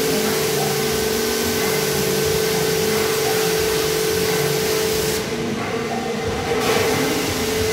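High-pressure washer running with its foam gun spraying: a steady hiss over a constant machine hum. The hiss drops away for about a second and a half after the middle, then comes back.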